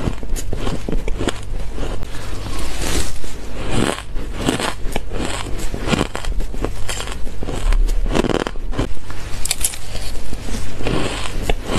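Shaved ice crunching and crackling as it is bitten and chewed, many crisp crunches in quick succession.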